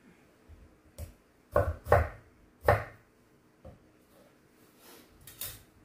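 Kitchen knife slicing tomatoes and knocking down on a wooden cutting board: about six separate knocks at an uneven pace, the loudest three close together in the first half.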